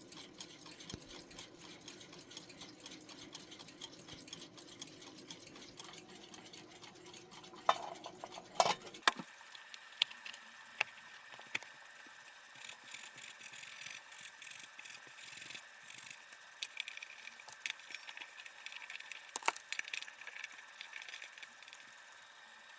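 Small mechanical clicking and rattling. A faint steady hum with rapid fine clicking stops about nine seconds in, right after a few sharp, loud clicks. Scattered light clicks and rattles follow over a faint steady high tone.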